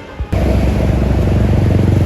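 Tour bus diesel engine running loud and close: a deep, pulsing rumble that cuts in suddenly about a third of a second in.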